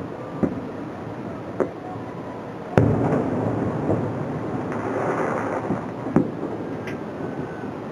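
Aerial fireworks bursting overhead: a continuous rumble of shells with a few sharp bangs on top, the loudest about three seconds in.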